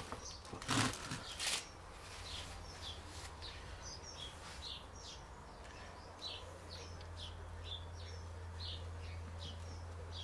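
Small birds chirping, short high calls repeating about once or twice a second, over a steady low hum. About a second in, two loud brief knocks or rustles.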